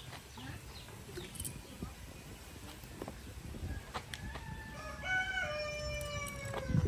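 A rooster crowing: one long call in the second half, which falls in pitch at the end. A few light knocks sound under it.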